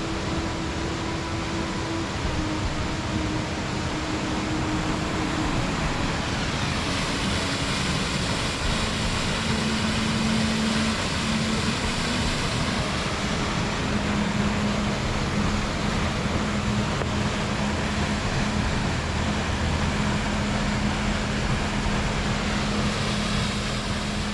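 Loud, steady rushing of a mountain stream and waterfall.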